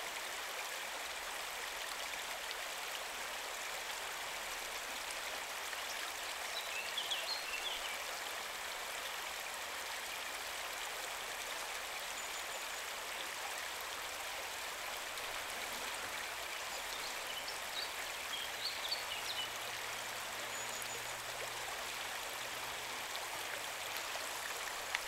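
Shallow river running fast over a gravel bed, a steady rushing of water. A few short high chirps come through twice, about a quarter of the way in and again past two thirds.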